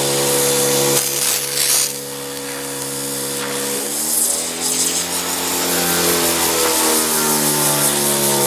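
Pressure washer running, its pump drone under the hiss of the water jet spraying a foam car-polishing pad clean. The pump's note drops lower about four seconds in and climbs back near the end.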